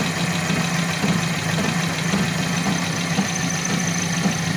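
A car engine idling steadily, an even low drone.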